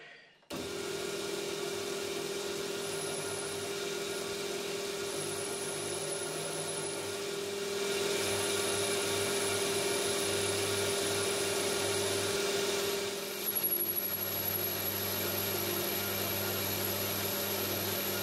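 Metal lathe switching on about half a second in and running steadily as the tool cuts a hard metal workpiece: a steady motor hum with a thin high whine that comes and goes, growing louder about eight seconds in. It is a light cut on hard material, where flex in the tool gives trouble.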